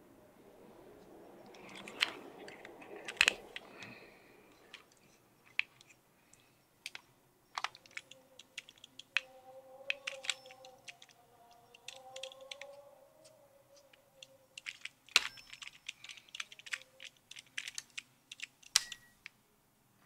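Irregular small metallic clicks, taps and light scrapes of a Bolex pin-removal tool being fitted and worked against a bare camera mechanism plate, with a few sharper clicks and a faint wavering squeak for a few seconds midway.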